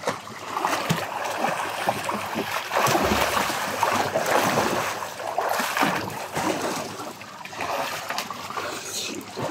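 Water splashing and sloshing as children swim in a small above-ground pool, loudest in the middle.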